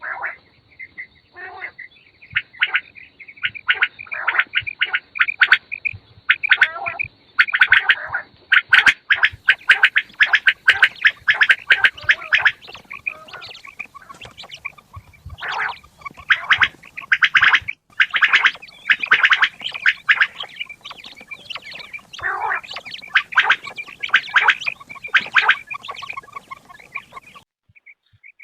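Quails calling: rapid, harsh chattering runs of calls in several long bursts, with brief pauses between them.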